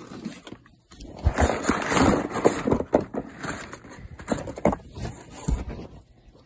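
Crumpled packing paper crinkling and rustling as it is pulled out of a foam-lined cardboard shipping box, with several knocks from handling the box. It dies down near the end.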